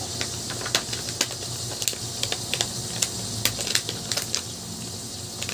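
Clear plastic packaging being handled and worked open by hand: irregular light clicks and crinkles, several a second.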